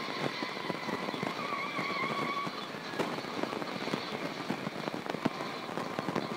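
Tinny soundtrack from a tablet's small speaker: dense, steady crackling with a faint wavering whine in the first half that fades about halfway through.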